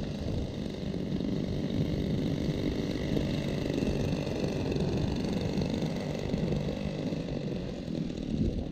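Twin engines of a giant-scale P-38 Lightning radio-control model idling steadily as the plane taxis on the grass.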